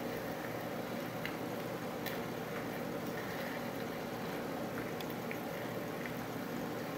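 Eggs frying sunny side up in a stainless steel skillet: a steady low sizzle with a few small scattered pops.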